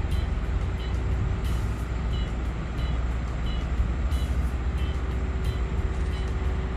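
Heavy diesel machinery running with a deep steady rumble, while a reversing alarm beeps regularly, about three beeps every two seconds.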